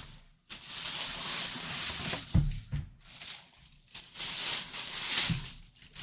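Thin plastic bag crinkling as a bagged full-size football helmet is pulled out of its cardboard box, in two long stretches. A few dull knocks come about two and a half seconds in and again near the end.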